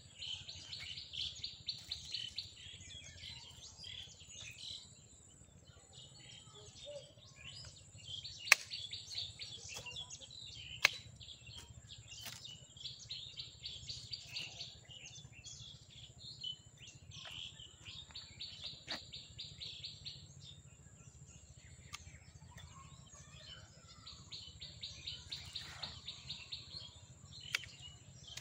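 A bird singing in bouts of rapid repeated high notes, about five times. Several sharp snips of hand pruning shears cutting water shoots off a young apple tree come in between, the loudest two about eight and eleven seconds in.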